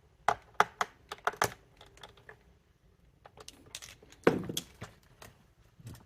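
Plastic parts of a Dyson cleaner head clicking and knocking as they are handled and fitted together during reassembly: a dozen or so irregular sharp clicks, with a louder knock about four seconds in.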